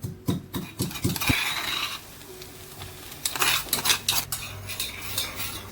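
A metal spoon or spatula stirring in a cooking pan, clinking and scraping against it: a quick run of clinks at first, then a softer scrape, and another cluster of clinks about three seconds in.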